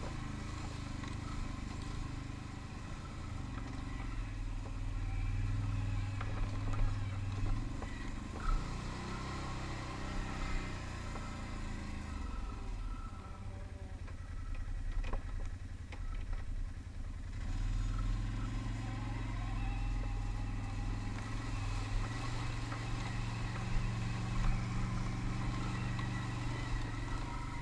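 Can-Am ATV engine running while riding a rough trail. It eases off for a few seconds about halfway through, then picks up again, with occasional knocks and rattles from the bumps.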